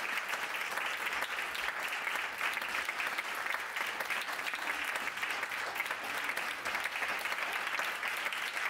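Theatre audience applauding steadily, many hands clapping, greeting the musicians as they walk onto the stage.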